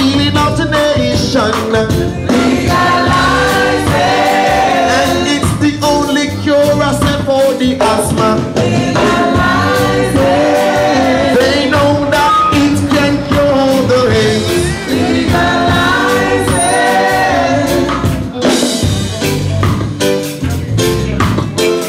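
A song with singing over a steady beat.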